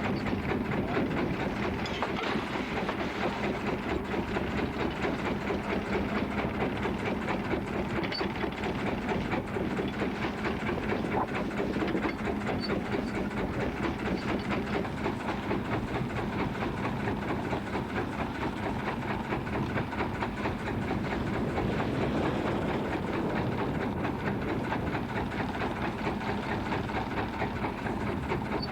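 Boat engine running steadily, a fast even chugging with a low hum underneath.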